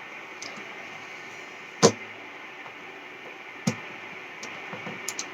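Two sharp knocks, about two seconds apart, over a steady background hiss, with a couple of faint clicks near the end.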